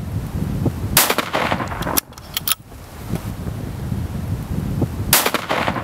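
A loud gunshot about a second in over a continuous low rumble, followed by a few sharp clicks, with the same shot-and-clicks pattern again about four seconds later.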